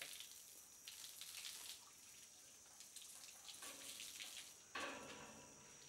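Faint steady hiss of water spraying down onto a baby elephant's back and the wet floor, with a sudden louder stretch about five seconds in.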